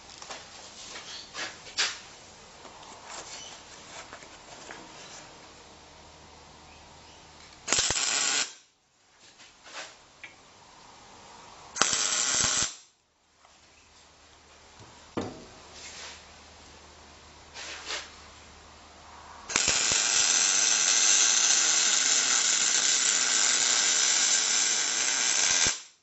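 MIG welder arc crackling as it welds the steel laminations of a microwave oven transformer core together: two short welds about a second long, around eight and twelve seconds in, then a continuous run of about six seconds near the end. Faint clicks and handling noises come before the first weld.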